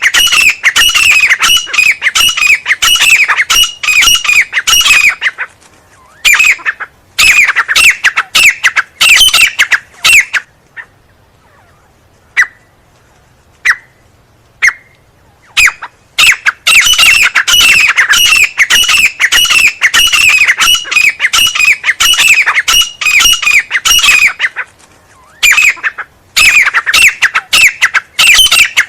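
Francolin (teetar) calling loudly in fast runs of harsh, repeated notes that each drop in pitch. In the middle the runs stop for about five seconds, broken only by a few single short notes, then the rapid calling resumes.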